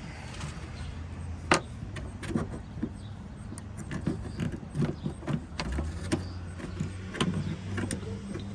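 Small clicks and taps of metal bolts and plastic trim handled by hand as a backup camera is lined up and its mounting bolts are worked into their threaded plate, with one sharper click about one and a half seconds in. A low steady hum runs underneath.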